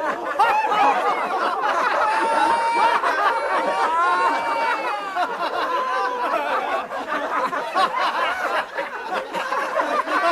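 A group of men laughing together, many overlapping chuckles and guffaws with no break.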